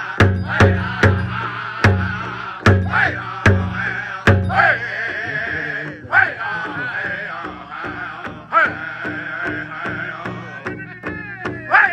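A pow wow drum group sings together around a big drum, with high, wavering voices over the beat. Over the first four seconds come several hard, loud drum strikes, then a steadier, softer beat. Near the end a singer's voice slides down in pitch.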